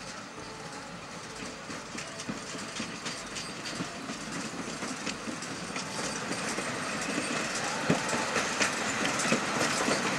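Narrow-gauge steam locomotive hauling open passenger cars, approaching and growing steadily louder, with a run of sharp clicks and knocks from the wheels and running gear on the track.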